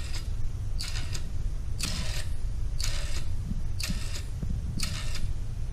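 Meccano-built electromechanical clock ticking, with a short, sharp mechanical click about once a second as its quartz-regulated pendulum beats seconds, over a steady low hum.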